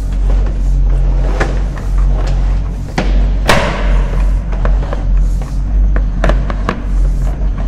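Sewer inspection camera and its push cable being fed along a 6-inch main line: irregular knocks and rattles, one heavier knock about halfway through, over a steady low hum.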